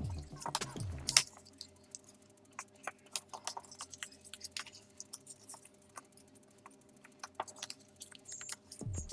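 Paper being handled and folded: scattered small crackles and clicks of creasing paper. Background music plays at the start, stops about a second in, and comes back near the end.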